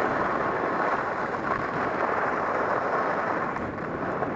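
Steady rushing hiss of skiing at speed: skis running over firm groomed corduroy snow, with wind on the microphone.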